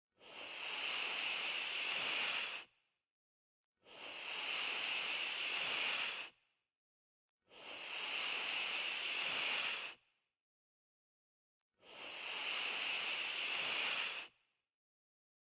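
A drawn-out hiss, about two and a half seconds long, repeated four times with a second of silence between, each one swelling in and cutting off sharply.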